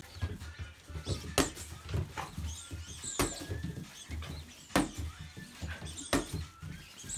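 Border collie puppies playing on a wooden floor: sharp knocks of paws landing and scrambling, about one every second and a half, with faint high whimpers.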